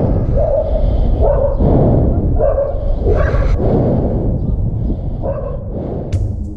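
Guard dogs barking repeatedly, a short bark or two about every second, over a steady low rumble. A few sharp clicks come near the end.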